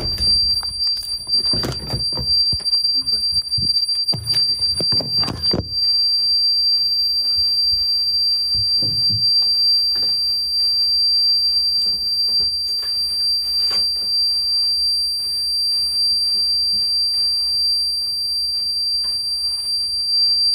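Home security alarm sounding a continuous high-pitched tone, set off by entering while the system was armed. Thumps and rustling in the first six seconds.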